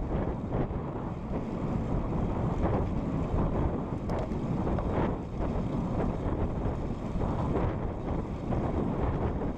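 Wind rushing over the microphone of a camera on a road bike moving at speed, a low, uneven rush that keeps swelling and dipping.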